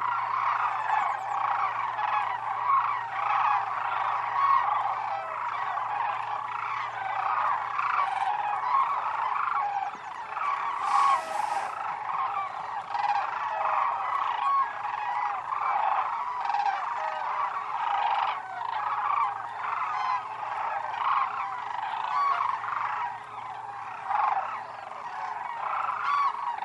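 A large flock of sandhill cranes calling, with many birds' calls overlapping into a continuous chorus.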